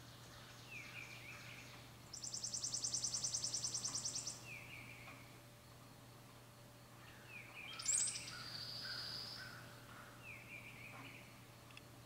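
Songbirds singing: a fast, dry, high trill of about eleven notes a second lasting about two seconds, the loudest sound, and a short down-slurred note repeated every three seconds or so. About eight seconds in, a sharp high call is followed by a buzzy note lasting a second or so.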